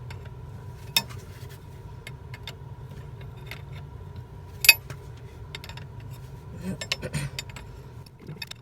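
Sharp metallic clinks and knocks of hand tools and hose fittings: one click about a second in, a louder one near the middle, then a short run of knocks near the end, over a steady low hum.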